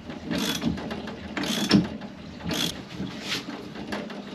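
A spanner turning the threaded rod of a bushing press tool in short, repeated strokes, about one a second, with metallic clicking. It is slow going because a stiff polyurethane bushing is being pressed in.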